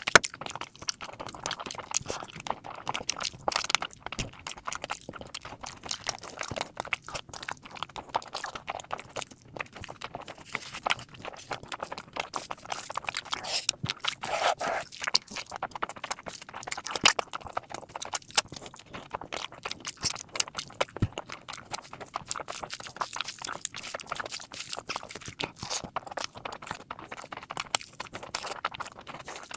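Close-up eating sounds: a person chewing and smacking mouthfuls of mutton fat curry and rice, a dense run of short wet clicks and smacks.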